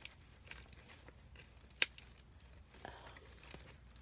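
Quiet handling of a small object: a few soft clicks and taps, with one sharp click a little under two seconds in.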